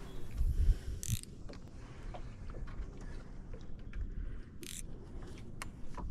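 Spinning fishing reel clicking and ratcheting as its drag is turned up and the reel is handled, with two short hisses, about a second in and again later.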